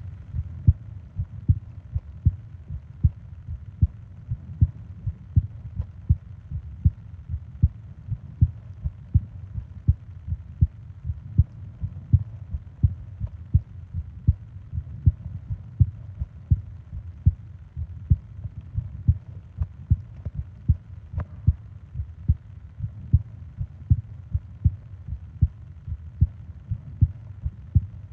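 Close-up recording of a human heartbeat: steady, regular low thumps repeating all through.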